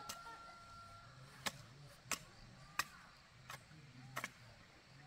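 Sharp chopping strikes of a hand tool, six of them spaced about two-thirds of a second apart.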